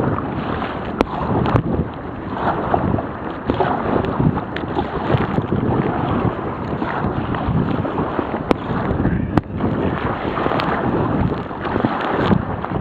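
Gale-force wind buffeting the microphone of a waterproof camera, mixed with splashing sea water around a sea kayak. The noise is a heavy, uneven rumble that swells and eases, with a few scattered sharp clicks.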